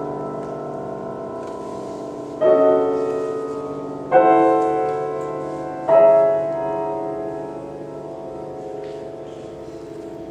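Grand piano playing slow, sustained chords: three chords struck about a second and a half apart, each left to ring and fade, the last dying away slowly.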